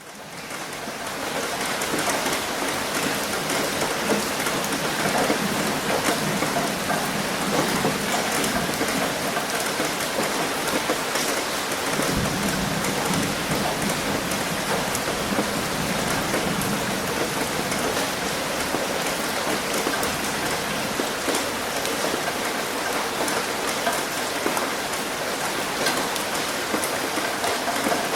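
Heavy rain drumming on a roof and splashing onto concrete: a dense, steady hiss full of fine drop ticks. It fades in over the first second or two, and a brief low rumble swells up about 12 seconds in.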